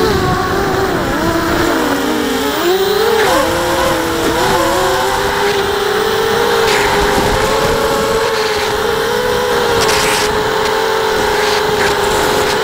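Racer quadcopter's electric motors and propellers whining loudly, heard from its onboard camera. The pitch dips and swings up and down with throttle in the first few seconds, then holds steady.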